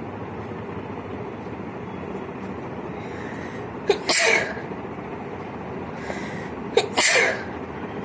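A person sneezing twice, about three seconds apart, each sneeze a sharp burst, over a steady background hum.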